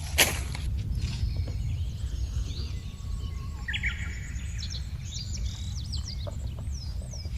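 Birds chirping in short, high rising and falling calls over a steady low rumble, with a few sharp clicks near the start.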